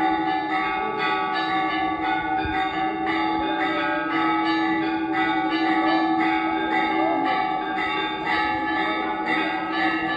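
Hindu temple bells rung continuously for the aarti, struck about twice a second, with a steady ringing tone sustained underneath.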